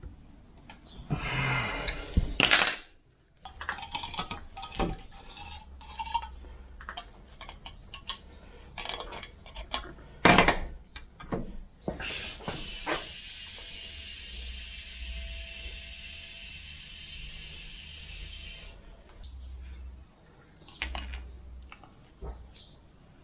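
Metal parts and hand tools clinking, tapping and knocking on a workbench while an excavator slew motor is being put back together, with one loud knock about ten seconds in. For about seven seconds in the middle a steady hiss runs under the clinks.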